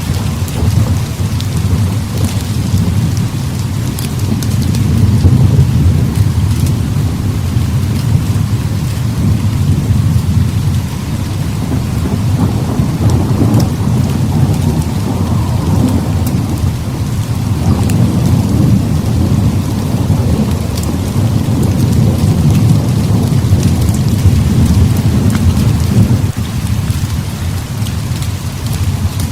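Heavy rain falling steadily, with rolling thunder rumbling low underneath and swelling in waves several times.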